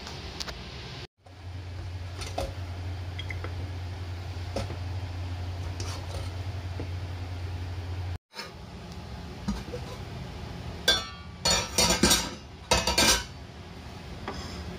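A serving ladle and utensils knocking and clinking against a stainless steel cooking pot and a plate while food is dished out, with a quick run of sharp clinks near the end. In the middle a low steady hum runs under faint scattered clicks.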